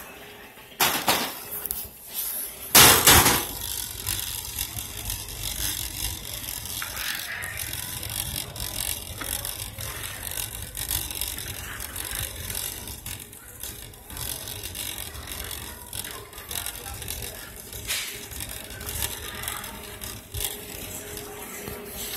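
Metal wire shopping cart rolling over a hard store floor, its basket rattling and clicking over a steady low rumble from the wheels. Two loud knocks come about one and three seconds in.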